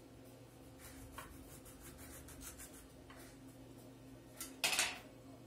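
Knife cutting a small lime by hand: soft, uneven scraping and slicing strokes, then one louder, sharp slicing sound a little before the end as the blade goes through.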